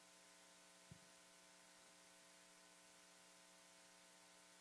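Near silence with a steady electrical mains hum, with one faint tick about a second in.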